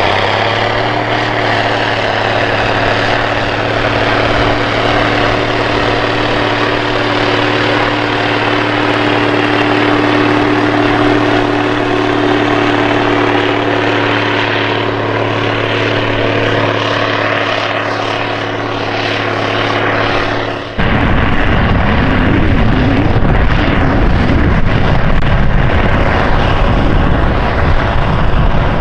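Steiger Cougar ST280's big six-cylinder diesel engine running steadily under load while pulling a mulch finisher through the field. About two-thirds of the way through, the sound cuts abruptly to a rougher, wavering low rumble without the engine's steady tone.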